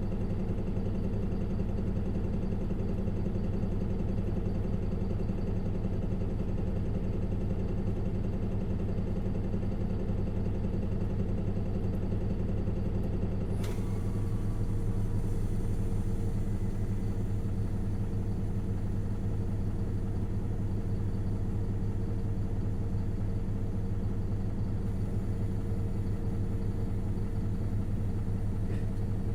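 Isuzu Erga city bus's four-cylinder diesel engine running at a steady, unchanging pitch, heard from inside the cabin. A sharp click comes about 14 s in.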